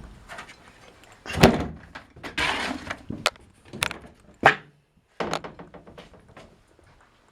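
Doors and hatches being opened and shut: a series of knocks and thuds, the loudest about a second and a half in, a short scraping rattle around two and a half seconds, and sharp knocks near four and four and a half seconds, then quieter knocks after a brief pause.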